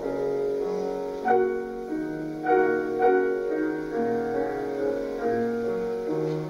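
Solo grand piano playing a slow classical piece: sustained chords under a melody, with new notes struck every half second to a second.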